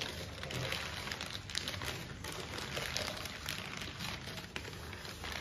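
Paper wrapping rustling and crinkling as it is pulled off a small ceramic pot by hand, a steady run of small crackles.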